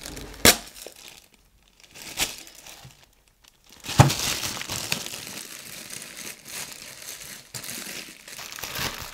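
Clear plastic freezer bag crinkling as it is opened and filled with peeled kiwi fruit. Two sharp snaps come in the first couple of seconds, then steady crinkling from about four seconds in.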